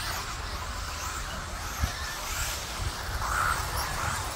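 Radio-controlled mini truggies running on a dirt track, their motors and tyres making a noisy rush as the cars pass, with a single thump about two seconds in.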